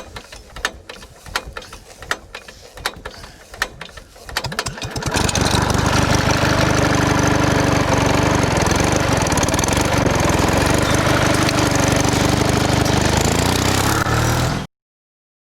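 Irregular clicks and knocks, then about five seconds in a motor starts and runs steadily and loudly before cutting off suddenly near the end.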